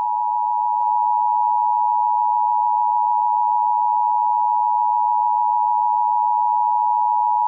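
Emergency Alert System attention signal: a loud, steady two-tone alarm, two close pitches sounding together, held without a break.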